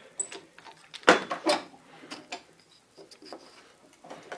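Knocks and clicks of a metal doweling jig being handled: it is taken off a wooden workpiece and set down on the workbench. A sharp knock comes about a second in and another half a second later, followed by lighter taps.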